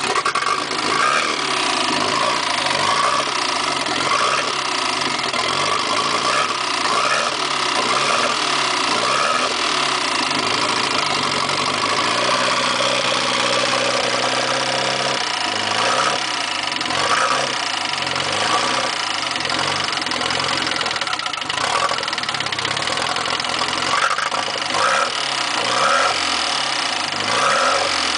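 Nissan SR20DET redtop turbocharged 2.0 L four-cylinder engine idling unevenly with a ticking noise: the engine is misfiring, and the owner is trying to work out whether the tick comes from the head or the bottom end.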